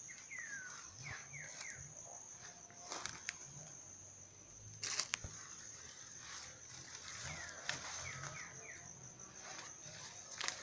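Forest ambience: a steady high-pitched insect drone, with a bird calling a short series of falling whistled notes twice, about seven seconds apart. A few sharp snaps and rustles come from footsteps through the undergrowth.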